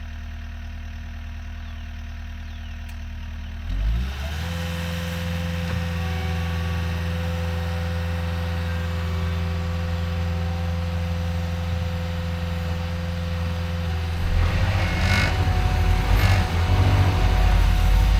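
CAT 289D3 compact track loader's diesel engine running at low speed, then revving up about four seconds in and holding a steady higher speed. Near the end it gets louder and rougher, with a dense rattle.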